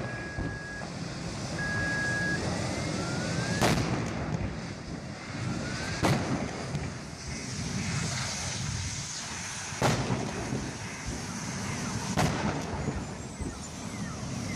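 Gas tanks exploding in a fire: four loud bangs a few seconds apart over a steady rushing noise, with two short beeps near the start.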